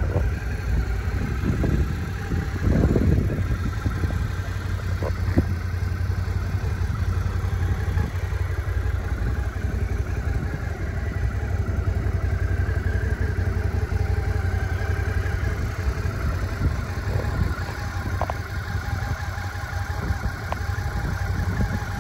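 Suzuki V-Strom 650's 645 cc V-twin engine idling steadily.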